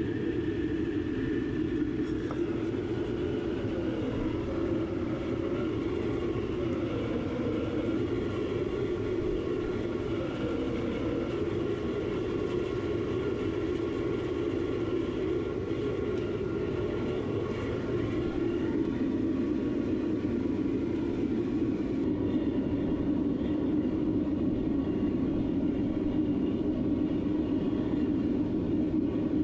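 Propane gas forge burners firing into a beer-keg melting furnace, a steady roar throughout, with a faint wavering tone in the first few seconds.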